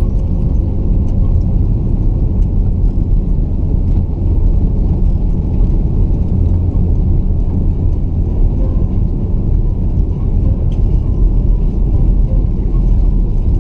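Steady low rumble inside the cabin of an Airbus A330-300 as it rolls slowly along the runway after landing.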